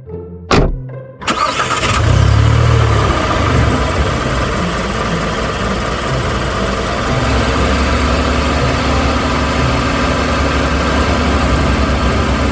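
A car engine starts about a second in, with a strong low surge just after it catches, and then runs on at a steady idle. A single sharp knock comes just before it.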